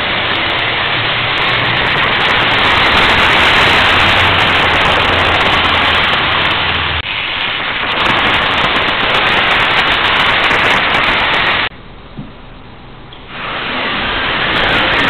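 Märklin model train running on pressed-steel M-track mounted up a wall, a steady noisy rush from wheels and motor carried through the metal track. It breaks off for an instant about halfway through and drops much quieter for over a second near the end.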